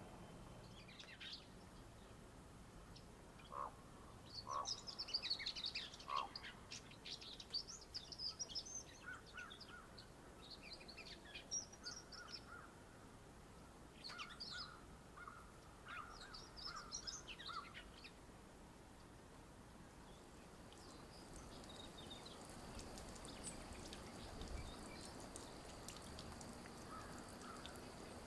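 Small birds chirping and singing in quick high bursts, several runs over the first two-thirds, over faint outdoor background. A faint steady high tone comes in during the last third.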